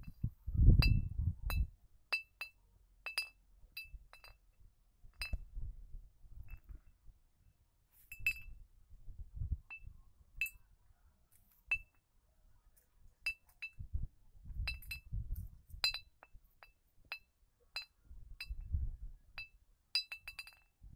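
A hanging glass beer bottle being struck again and again at irregular intervals by a small clapper on a string that the wind swings via a cardboard flap, each hit giving a short ringing clink: a homemade wind-driven noisemaker for scaring animals from a field. Gusts of wind buffet the microphone a few times.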